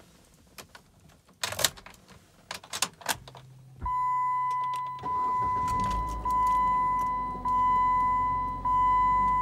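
Key clicking into a Jeep Patriot's ignition and turning, with a brief hum as the ignition comes on. Then the seatbelt warning chime beeps about once a second while the four-cylinder engine cranks and starts about five seconds in, settling to a steady idle.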